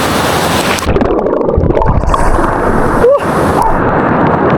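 Rushing water of a waterfall pool with wind buffeting the microphone, a loud continuous rush. The high hiss drops away about a second in, leaving a heavier low rumble.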